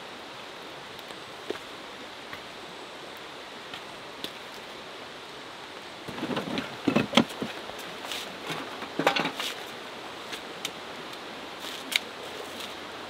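Steady rain hiss with scattered sharp drip ticks. From about six seconds in, several seconds of clattering knocks and rustling as camping gear is handled under the tarp.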